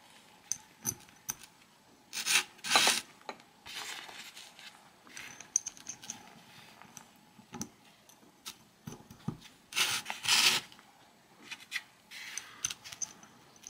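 Small steel planetary gears and pins of a Sturmey-Archer AW hub being slid into the planet cage by hand: light metal clicks and rubbing, with longer rubbing sounds about two seconds in and again around ten seconds.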